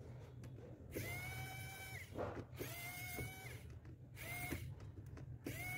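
Pen-type electric precision screwdriver whining in four short runs, each starting and stopping abruptly, as it backs out the small screws from a smartphone's inner frame.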